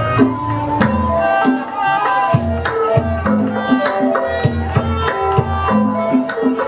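Dance accompaniment music: a hand drum plays a busy pattern of deep, pitch-bending strokes and sharp slaps over a melody of short, clear pitched notes.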